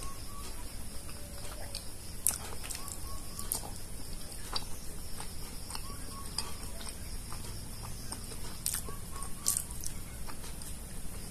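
Close mouth sounds of a person eating a soft, syrup-soaked gulab jamun: wet chewing with scattered lip smacks and clicks.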